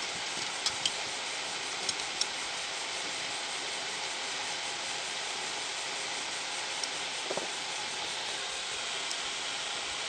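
A steady, even hiss with a few light clicks in the first two seconds, from the plastic grinder housing and wires being handled during assembly.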